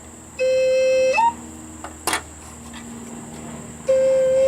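Two held low C notes played on plastic recorder-type pipes, a Flutophone and a standard recorder compared. The first note lasts under a second and ends in a quick squeak jumping higher. The second starts near the end. There is a single click between them.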